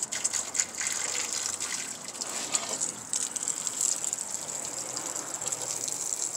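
Hose spraying water at low pressure onto the rusted sheet-metal hood and grille of an old International Harvester tractor: a steady hiss and spatter with many small ticks of water striking metal.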